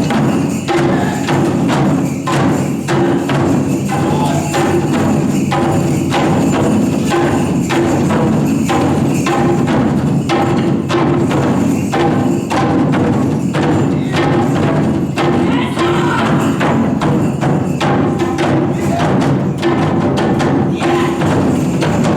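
Japanese taiko drums played live by an ensemble: a fast, unbroken run of strikes, with sharp clacking hits over the deep, ringing drum tones.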